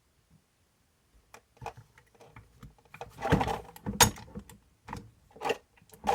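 Hand tools and small metal RC shock parts being handled on a workbench: irregular clicks and scrapes, with several louder clunks from about the middle on.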